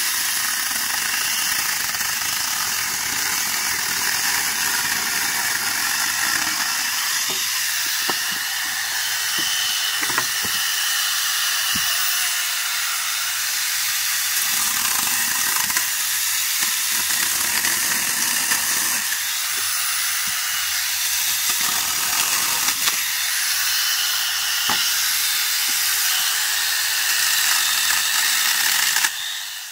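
Angle grinder fitted with a small chainsaw bar-and-chain attachment, running at speed with a steady high whine while cutting firewood logs, the load coming and going every few seconds. A few short knocks of wood are heard along the way.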